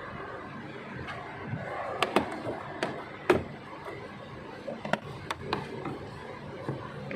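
Scattered sharp clicks and knocks of hand work on a car's plastic dashboard and glove box area with a screwdriver, about eight over several seconds, the loudest a little past three seconds in. A steady low background murmur runs underneath.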